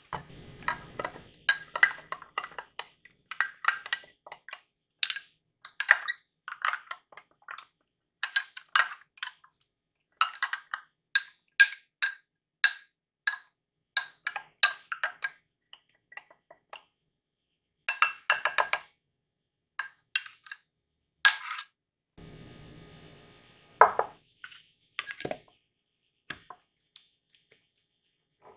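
Metal spoon clinking against a small glass jar while stirring chia seeds into almond milk: many quick, ringing clinks in irregular runs. Near the end, a few duller knocks as a plastic lid is put on the jar.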